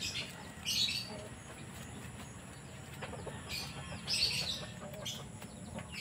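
A few brief feather rustles and wing flutters from a racing pigeon held in the hand with one wing spread open.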